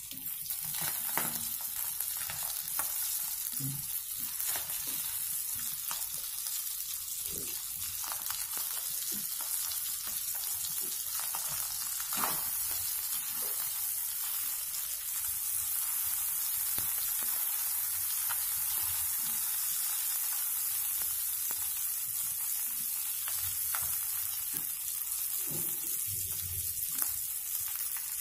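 Thick fish pieces shallow-frying in oil in a nonstick pan, giving a steady high sizzle. Scattered short clicks and scrapes come from a metal slotted spoon turning and pressing the fish against the pan.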